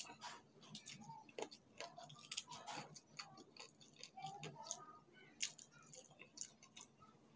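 Faint, irregular wet clicks and smacks of someone eating rice by hand: chewing and lip smacks, with fingers gathering rice on a plate in between mouthfuls.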